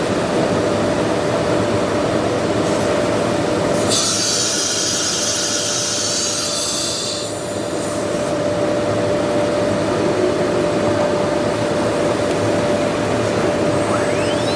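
Roctech RC1530S ATC CNC router running, a steady whine over mechanical noise. About four seconds in, a bright high hiss comes in for about three seconds, and near the end a whine rises in pitch.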